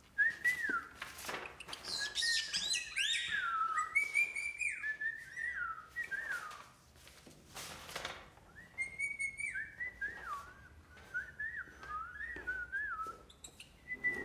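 A pet parrot whistling a string of short falling whistles, with a couple of quick runs of high chirps, over scattered light knocks and rustles.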